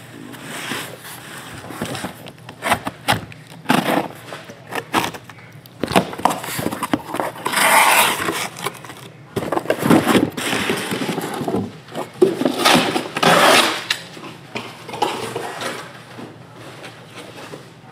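A cardboard shipping case being handled and opened by hand: cardboard scraping and rustling with scattered knocks as it is moved. Two longer scraping stretches come about eight and about thirteen seconds in.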